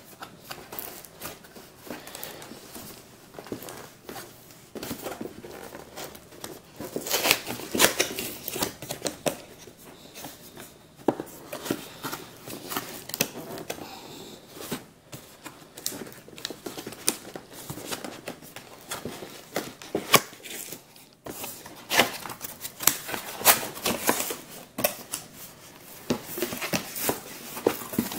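Cardboard scraping and rubbing as a snug outer sleeve is worked off a cardboard box, with many irregular clicks and taps of fingers and cardboard edges. The handling is loudest in clusters partway through and near the end.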